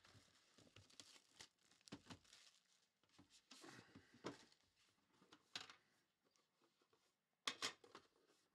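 Faint scraping and rustling of a cardboard trading-card box being handled and slid open, ending in two sharp taps as the box is set down, about seven and a half seconds in.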